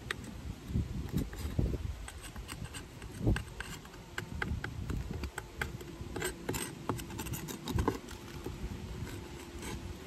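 Honeybees buzzing around an open Layens hive, one hum holding steady close by through the second half, over scattered clicks and knocks of wooden frames and a hive tool being handled.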